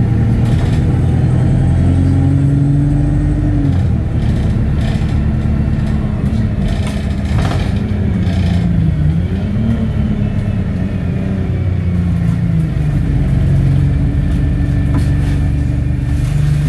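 Bus diesel engine heard from inside the passenger saloon, its note rising and dropping several times as the bus pulls along through traffic, with light rattles from the body.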